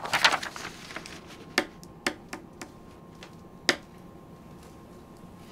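A sheet of drawing paper rustles as it is handled at the start. A few sharp, irregular clicks and taps follow, the loudest about a second and a half in and near the middle.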